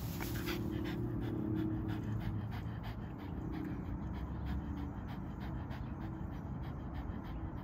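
Staffordshire Bull Terrier panting rapidly and steadily with her mouth open.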